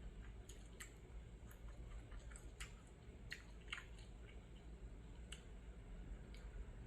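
A person chewing food close to the microphone, faint, with about eight scattered soft clicks.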